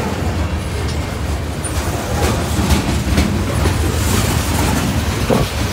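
Freight train tank cars rolling past close by: a loud, steady low rumble of steel wheels on the rails, with sharp clicks as the wheels cross rail joints.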